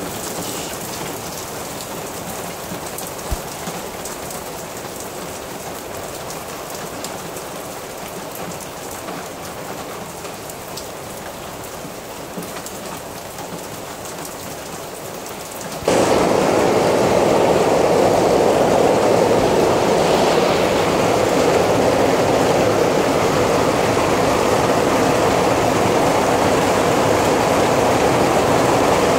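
Steady rain in a thunderstorm. About halfway through, the sound cuts abruptly to a louder, fuller patter of rain on a conservatory roof.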